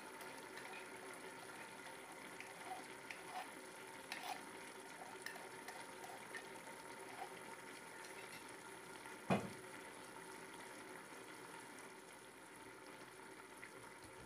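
Mutton curry boiling in an uncovered pressure cooker pot: a steady bubbling with small scattered pops, and a single sharp knock about nine seconds in.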